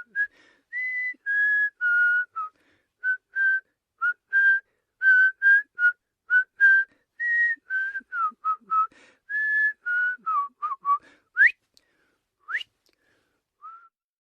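A person whistling a quick tune of short, clear notes that hop between pitches. It ends with two fast upward-sliding whistles and one last short note.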